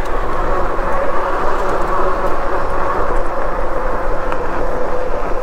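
Riding noise on a fat-tyre electric bike: a steady rush of tyre and wind noise, with a faint constant hum underneath.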